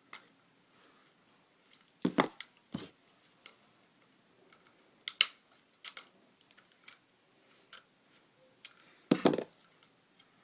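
Sharp hard-plastic clicks and knocks, a handful spread a few seconds apart, from a TV remote's plastic case being pried apart and its parts handled.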